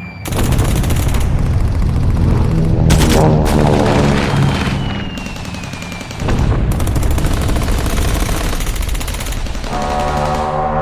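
Added machine-gun fire sound effect in rapid bursts, a short one near the start and a long one from about six seconds in, over background music, with a short falling whistle between them.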